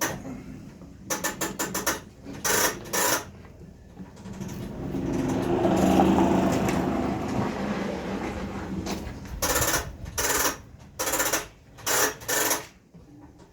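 A handheld power tool run in several short bursts of rapid clatter, with a longer noise swelling and fading in the middle.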